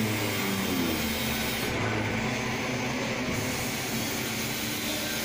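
Automatic foundry sand molding machine running: a steady mechanical hum and whir, with a short falling whine about a second in.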